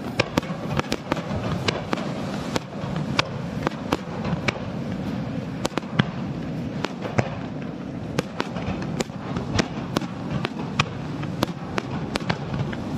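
Fireworks bursting in an irregular stream of sharp bangs and cracks, a few each second, over a continuous low rumble.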